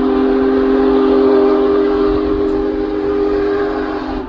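Steam locomotive whistle, Union Pacific Big Boy No. 4014's, blown in one long loud chord of several notes at once, cut off shortly before the end.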